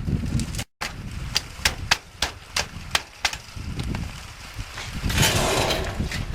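A run of sharp single knocks, about ten over three seconds, like nails being driven into wood on a roof deck, followed near the end by a brief rush of noise.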